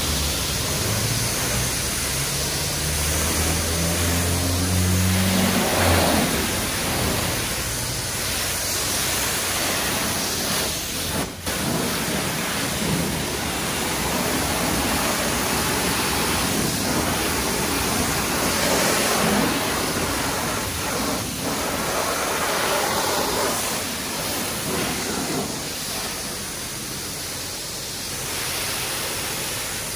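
High-pressure water spraying from a self-serve car wash wand onto a car, a steady hiss with a brief break about eleven seconds in. A low hum sits under it for the first few seconds.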